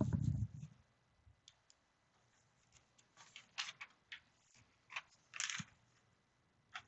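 Plastic LEGO bricks being handled and fitted together: a dull bump at the start, then scattered light clicks and small rattles.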